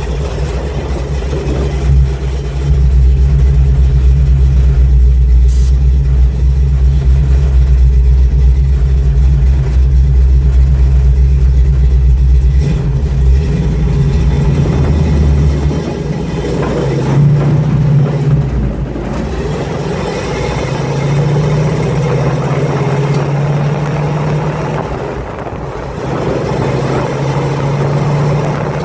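1948 Pontiac engine running: a loud, deep rumble for about the first half, then lighter, with several short swells.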